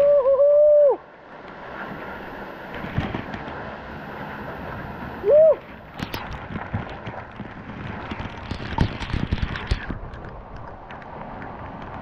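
A man lets out a loud, held whooping yell near the start and a short rising one about five seconds in, over the steady rush of a waterfall. From about six seconds on, water drops from the spray crackle and patter on the camera.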